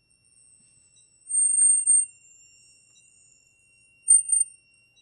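Ultrasonic cutter slicing through the plastic barrel of an Apple Pencil Pro, giving a piercing high squeal. The squeal comes in two spells: about a second long starting just over a second in, then a shorter one near the end. A faint steady high whine runs underneath.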